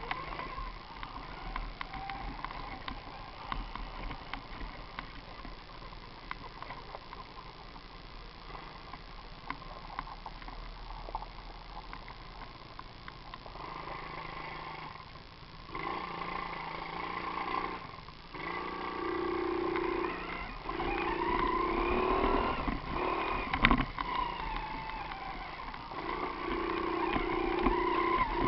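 Mini motorbike engine running, fainter at first and louder from about halfway through. Its revs rise and fall, with brief drops in between.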